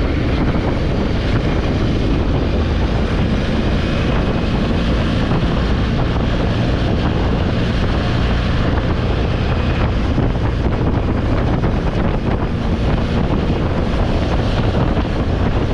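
Honda Africa Twin Adventure Sports' parallel-twin engine running steadily while riding, mixed with heavy wind buffeting on the microphone.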